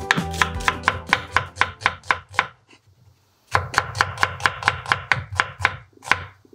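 Chef's knife slicing an onion on a wooden cutting board: quick, even knife strikes on the board, about five a second. They stop briefly about halfway through, then resume.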